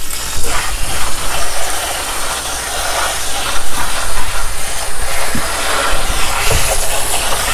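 Water from a kitchen faucet's pull-down sprayer spraying steadily onto chopped kale in a plastic salad spinner basket and splashing into a stainless steel sink.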